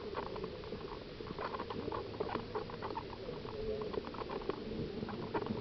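Irregular light clicks and rustling, with a faint voice in the background.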